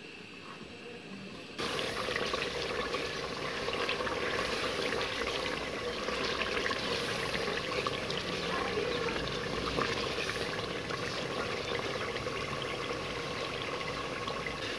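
Beef and yogurt masala sizzling and bubbling in ghee in an aluminium pot as it is stirred with a wooden spoon: the bhuna stage, frying the yogurt down after the water has cooked off. The sizzling comes in abruptly about a second and a half in and stays steady.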